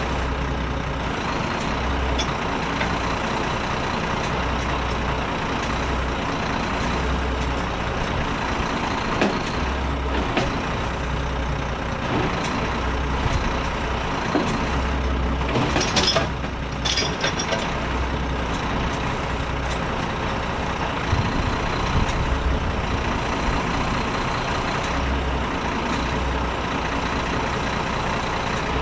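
Renault Kerax 380 DXi truck's diesel engine running steadily, with a low throb that swells and eases every second or two and a thin steady whine over it. About halfway through come two short sharp hisses.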